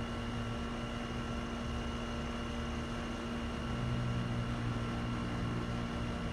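A steady mechanical hum with several fixed tones over a light hiss, and a low rumble that swells about three and a half seconds in and fades near the end.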